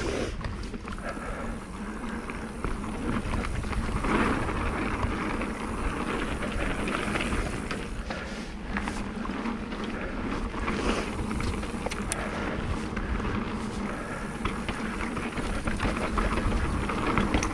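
Mountain bike riding down a dry dirt trail: a steady rush of tyre noise on dirt and loose stones, with a few sharp clicks and rattles from the bike.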